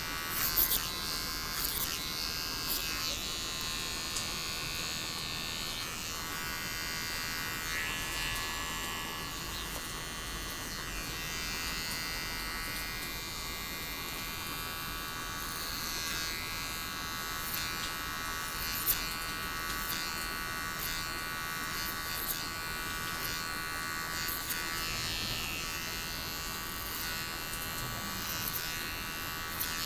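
Electric hair clippers buzzing steadily as they run through hair.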